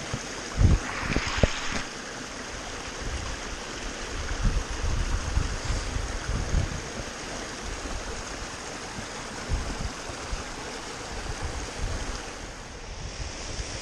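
Small mountain stream running over stones, a steady hiss of water, with wind buffeting the microphone in uneven low rumbles.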